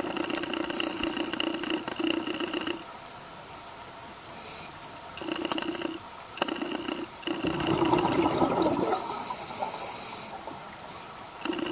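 Scuba diver breathing underwater through a regulator: steady hissing stretches that start and stop, and a louder burst of exhaled bubbles about two-thirds of the way through.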